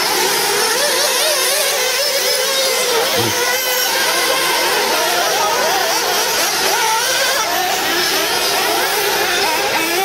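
Several 1/8-scale nitro RC off-road buggy engines racing at once, a high buzz that keeps rising and falling in pitch as the cars accelerate and brake around the track.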